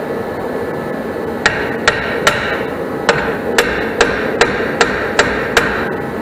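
A hammer striking a rear brake drum, about ten sharp ringing blows roughly two or three a second, starting about a second and a half in, to free the drum from a rear brake that is dragging. A steady hum runs underneath.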